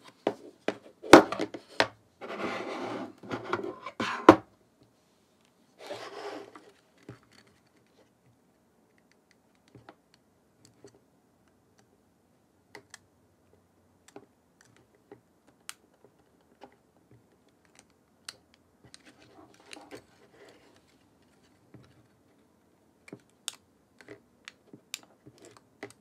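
Small plastic clicks, taps and rubbing from a partly dismantled Nikon Z50 mirrorless camera body and its rear panel being handled while ribbon cables are fitted. A cluster of louder knocks and scraping comes in the first few seconds, then only sparse faint clicks.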